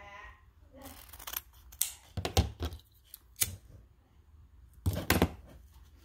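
Scissors snipping through yellow grosgrain ribbon, then a handful of sharp clicks and knocks as a lighter is clicked and handled to seal the cut end, the loudest pair near the end.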